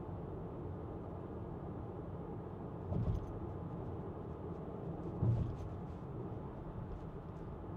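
Steady road and tyre noise of a 2024 Renault Grand Koleos hybrid on the move, heard from inside the cabin, with two brief low thumps about three and five seconds in.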